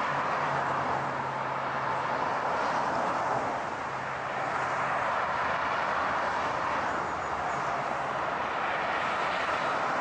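Road traffic: a steady rush of tyre and engine noise from a stream of cars driving past, with a low engine hum under it. It dips briefly about four seconds in, then swells again.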